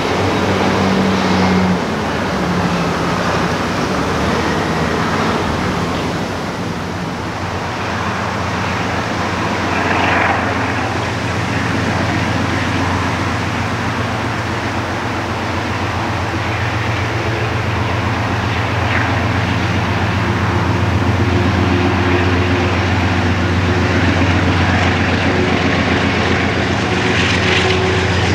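Diesel freight locomotive's engine running with a steady low drone, growing louder in the second half as it draws near.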